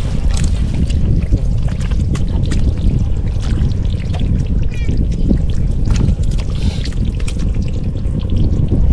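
Water splashing and trickling in short irregular bursts, over a steady heavy low rumble.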